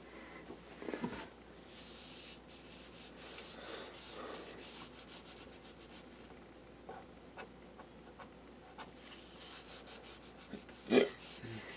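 A towel rubbing over a laptop's case as it is wiped down lightly wet, in faint, irregular strokes. One sharp knock about eleven seconds in.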